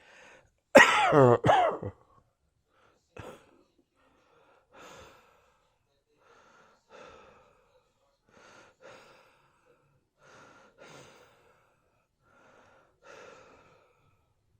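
A person coughing hard in one loud, harsh burst about a second in, then a run of quieter wheezing breaths, one every second or so, each with a steady whistling tone.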